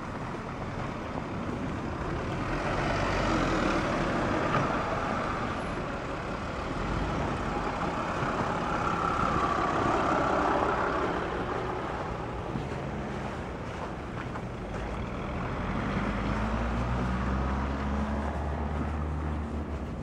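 Traffic on a snow-covered street: vehicles pass one after another, each swelling up and fading, their tyres running through packed snow and slush. Toward the end a deeper engine note comes in and rises slightly in pitch.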